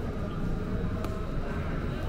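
Urban street background: a steady low rumble of distant city traffic, with one faint click about a second in.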